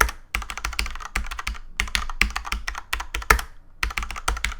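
Typing on a Cherry MX Board 6.0 mechanical keyboard with Cherry MX Red switches: rapid keystrokes clacking in quick runs, with a few short pauses between runs.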